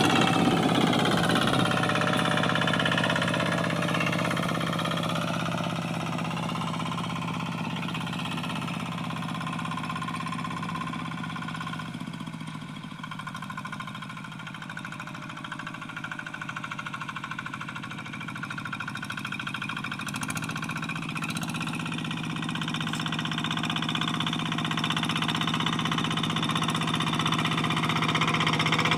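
Single-cylinder diesel engine of a two-wheel hand tractor running steadily under load as it pulls a moldboard plough through dry paddy soil. It grows fainter through the middle as the tractor moves off and louder again near the end as it comes back.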